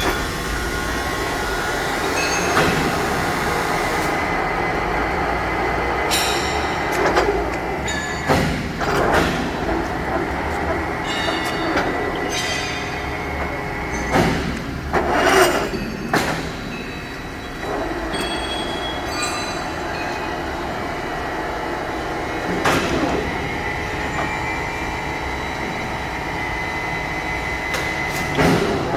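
Ryazan 1MH63H-3 engine lathe running under power: a steady machinery drone with a faint whine, broken by several knocks and clatters. A rising whine begins near the end.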